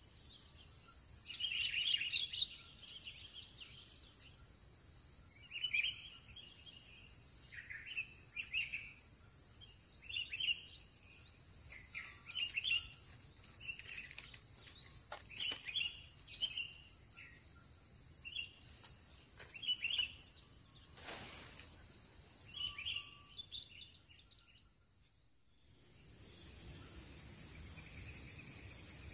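Insects, crickets, keeping up a steady high-pitched drone, with short chirping calls every second or two. About 25 seconds in the sound dips briefly, then a higher, louder insect chorus takes over.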